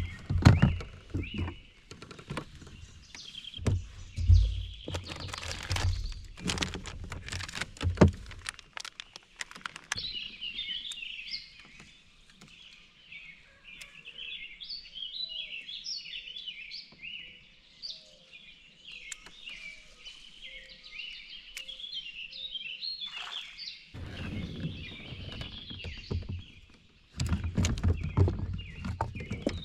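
Birds chirping and singing in a busy chorus, interrupted by loud knocks and thumps through the first third and again near the end.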